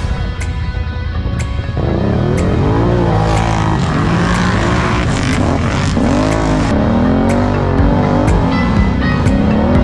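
Can-Am ATV engine revving up and down repeatedly as the quad drives off, coming in loudly about two seconds in, over background music with a steady beat.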